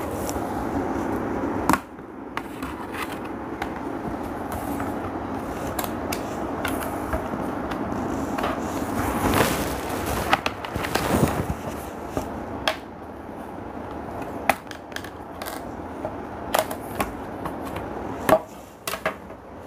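Plastic pry tools working around the seam of a Dell laptop's metal bottom cover, giving scattered sharp clicks and snaps as the cover's edge comes loose, with a longer scraping rustle about halfway through.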